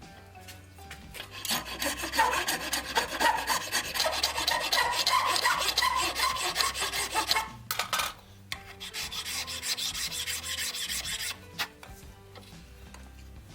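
Rasp worked by hand across wood, shaping a frame piece: a long run of scraping strokes, a short pause, then a few seconds more.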